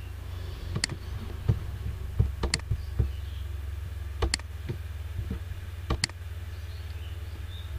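Computer mouse clicking: four sharp clicks a second or two apart, with a few fainter ticks, over a steady low hum.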